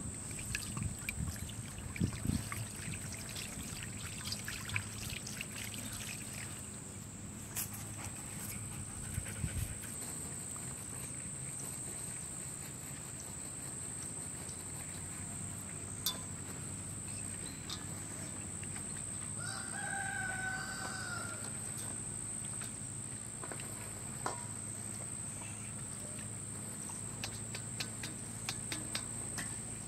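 Steady high chirring of crickets, with a rooster crowing once about two-thirds of the way through. Near the start, water is poured from a clay jug onto pumpkin flowers in a metal bowl, and light clicks and rustles of the flowers being handled come and go.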